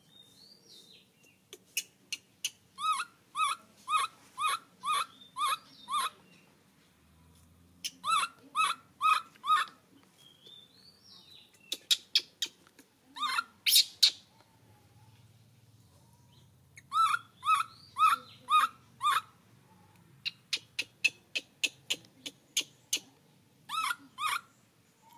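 Infant monkey calling: short, high-pitched squeaky calls, about two a second, in several bouts with pauses between.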